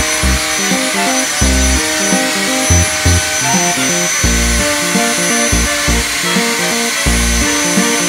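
Instrumental background music, a melody stepping through notes over bass notes, played over a steady vacuum-cleaner hiss with a faint high whine.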